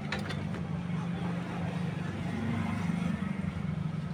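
A steady low motor-like hum that swells slightly in the middle. A few light clicks of metal pipe pieces being handled come at the start.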